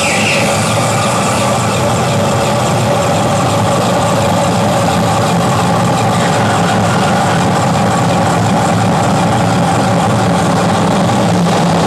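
Live electronic noise music: a loud, dense, unbroken drone of hiss with several steady held tones, low and mid, changing little throughout.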